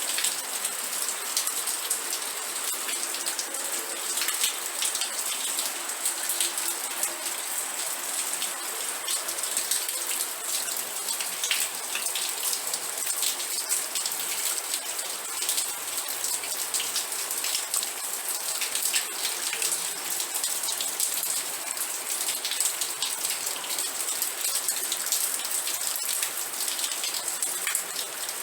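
Steady rain with many close drops pattering on a surface, an even hiss strongest in the upper range.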